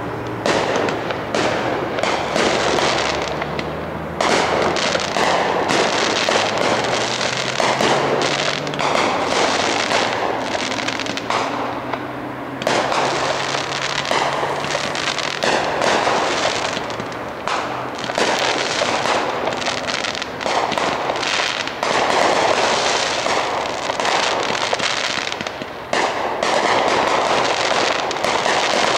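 Fireworks going off in rapid succession: a dense, continuous barrage of bangs and crackling bursts, easing briefly about four, twelve and twenty-six seconds in.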